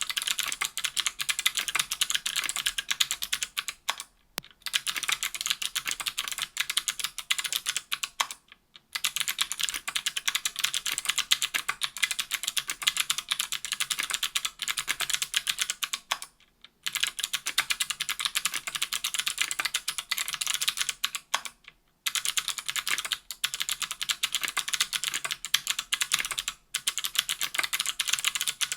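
Fast, continuous typing on a KBDfans Tofu 60% aluminum keyboard with stock NovelKeys Sherbet 70 g clicky switches, an aluminum plate and GMK keycaps. It is a dense stream of sharp clicks, broken by a few brief pauses.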